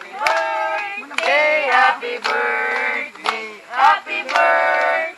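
A group of men and women singing together in a held, stepping tune, with a few hand claps near the start.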